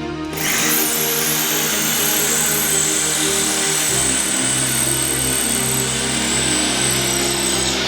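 Electric drill with a masonry bit boring down through a tiled stone floor. It starts a moment in and runs steadily under load.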